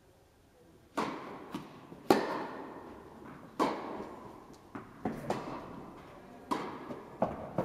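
Tennis rally: a ball struck by rackets and bouncing on the court, about ten sharp hits starting about a second in, each echoing in the large indoor tennis hall.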